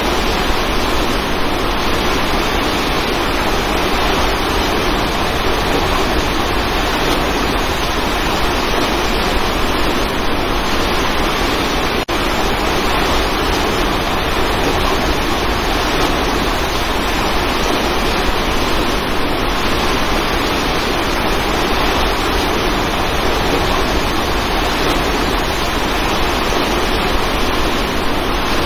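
Waterfall rushing: a steady, even wash of falling water, with one brief click about twelve seconds in.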